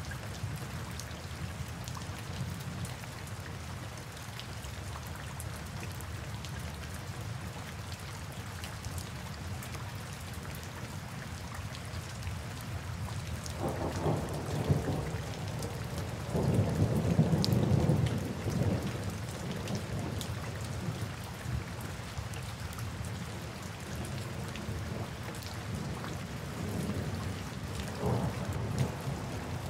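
Steady heavy rain with low rolling thunder beneath it. The thunder swells louder twice near the middle, the loudest peal coming a little past halfway, and rumbles up again near the end.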